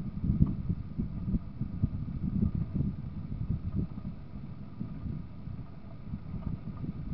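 Car driving along a road, recorded by a dashcam: a steady low rumble of road and engine noise with irregular low thumps.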